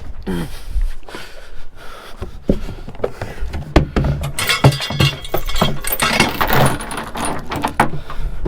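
Rattling, jangling and sharp clicks from gear being handled on a boat whose outboard motor is not running. The clatter is busiest in the middle.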